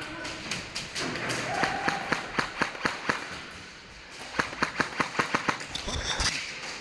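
Airsoft rifles firing quick single shots, sharp cracks at about four or five a second. There are two strings of shots, one about a second and a half in and another just past four seconds.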